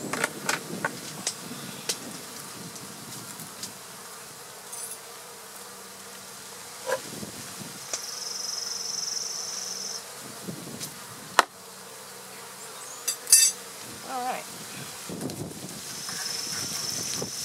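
Honey bees buzzing around the hive, single bees now and then flying close past with a wavering drone. A few sharp knocks sound, the loudest about eleven and thirteen seconds in.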